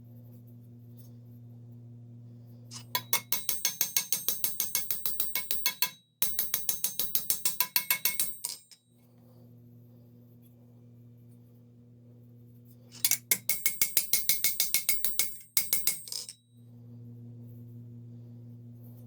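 Steel hammer striking steel plate armour in quick light blows, several a second, each with a bright metallic ring, in two runs of a few seconds each. A steady low hum runs underneath. This is the hammering around stretched rivet holes that closes them back up.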